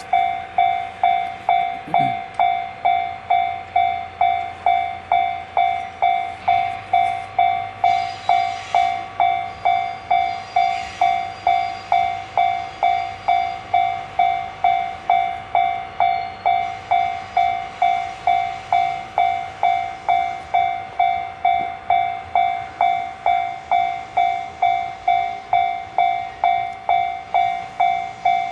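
Railway level-crossing warning bell ringing steadily, about two strokes a second.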